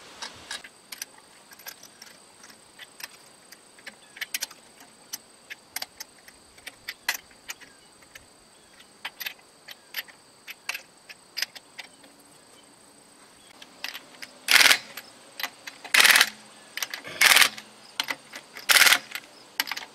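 Lug nuts clicking and clinking as they are spun onto the wheel studs by hand. Near the end a cordless power tool runs them down in four short bursts.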